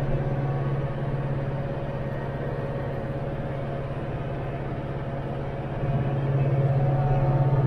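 Branson 5520CH tractor's diesel engine running steadily in a low drone while pulling a rotary cutter (brush hog) through ditch grass, getting a little louder about six seconds in.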